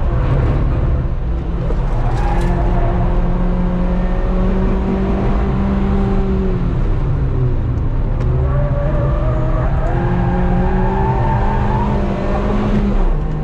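Car engine pulling hard on a race track, heard from inside the cabin: the pitch climbs, drops about halfway through as the car slows, then climbs again before falling away near the end.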